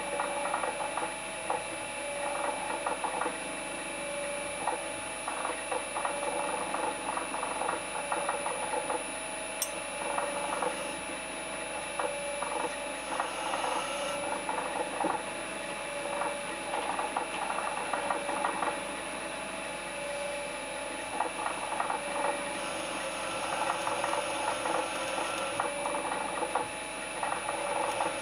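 Drill press running with a small twist drill cutting into the steel top of a box: a steady motor whine under irregular scratchy cutting noise from the bit.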